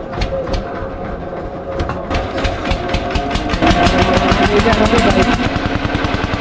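Boat engine chugging and revving up: its beats quicken from a slow few a second to a fast, steady chug of about eight a second, loudest about four seconds in.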